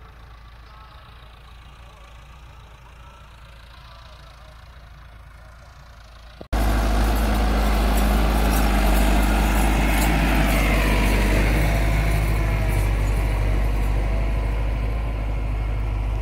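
A faint steady hum, then about six and a half seconds in, an abrupt switch to a close, loud Massey Ferguson 385 diesel tractor engine running steadily under load as it pulls a cultivator through dry soil.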